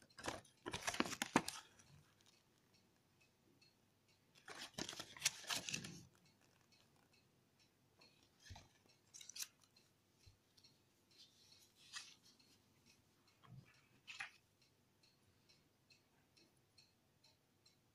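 Paper rustling and crackling as a folded paper user guide is unfolded, in two bursts, one near the start and one around five seconds in. After that come scattered light clicks and taps from handling a small plastic flash drive.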